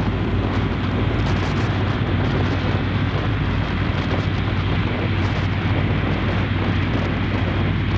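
Airbus A330-243's Rolls-Royce Trent 700 jet engines running with a steady, loud rumble and a low hum, mixed with gusty wind buffeting the microphone.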